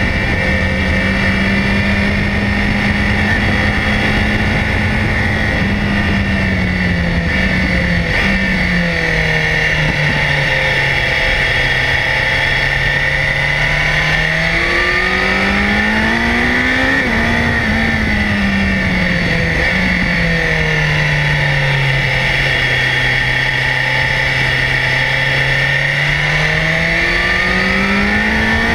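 BMW S1000XR's inline-four engine, revs easing off about a quarter of the way in, then climbing to a peak around the middle, falling away again and rising once more near the end as the bike slows and accelerates.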